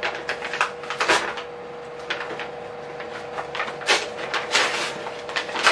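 Paper gift bag and its wrapping rustling and crinkling as hands rummage inside and pull a gift out, in a run of irregular crinkles that are loudest about a second in and again around four seconds.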